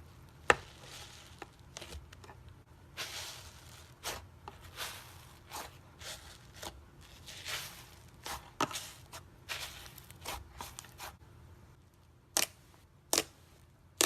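Slime being handled: squeezed and pressed by hand, giving irregular clicks and short crackly pops, with two sharper pops near the end.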